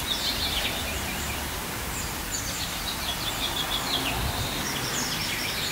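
Small birds chirping in quick clusters over a steady wash of city street traffic.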